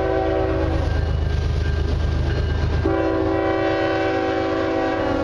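Diesel locomotive horn sounding a chord at a grade crossing: one blast that ends about a second in, then a long blast from about three seconds in. Underneath runs the steady low rumble of the lead GE GEVO diesel locomotive as it approaches and passes.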